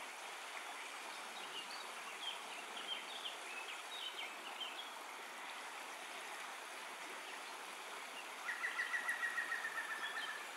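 Outdoor ambience: a steady hiss with small birds chirping in short high notes, then a songbird's rapid even trill of about a second and a half near the end, the loudest sound.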